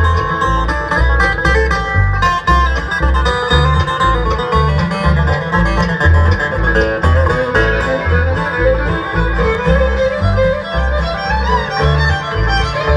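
Bluegrass band's instrumental break: rapid banjo picking with guitar and fiddle over a steady, alternating bass line.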